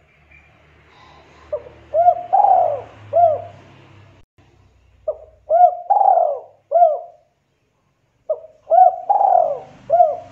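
Spotted dove cooing: three phrases, each a run of four or five rising-and-falling coos, with short gaps between phrases.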